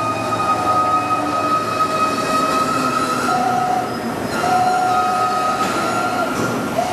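H&H Roberts Topwell TW-50 CNC vertical machining center's table moving at rapid traverse: a steady mechanical whine from the axis drive, its tones stepping up and down a few times during the move.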